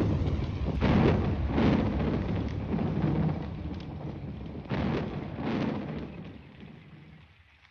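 Storm sound effect: thunder rumbling with a few sudden cracking peaks, then dying away into near silence.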